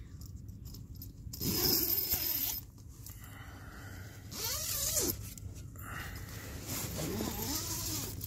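Tent door zipper being pulled open by hand in three long strokes, each with a zipping tone that rises and falls.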